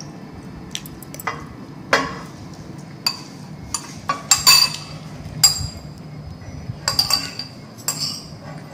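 Metal spoon clinking and scraping against a ceramic bowl as someone eats from it, a dozen or so irregular clinks with brief ringing.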